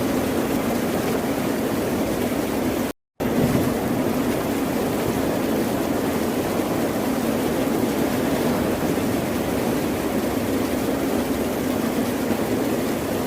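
Ocean surf as a steady, even wash of water noise. It cuts out completely for a split second about three seconds in, then resumes.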